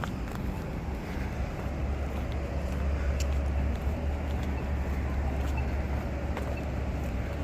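Road traffic passing, a low engine rumble that swells about two seconds in. Over it, a pedestrian push button's locator tone ticks about once a second.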